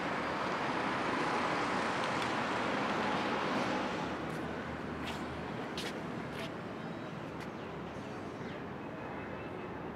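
Road traffic noise: cars passing on a city road, louder in the first few seconds and then easing, with a few faint clicks in the middle.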